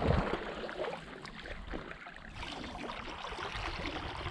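Water sounds around a paddleboard in light rain: the paddle dipping and water lapping, with rain falling on the sea's surface as a steady hiss of small ticks.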